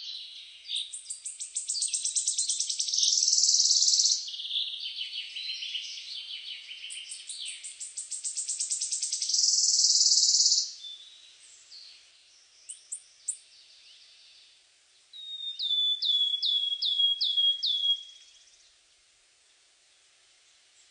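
Birds singing: fast, rattling trilled phrases for the first half, a few short chirps, then a run of about seven quick downslurred whistled notes; the song fades out for the last few seconds.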